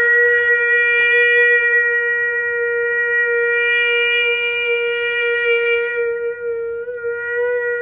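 A man's voice holding one long, high tone on a single steady pitch, wavering slightly near the end.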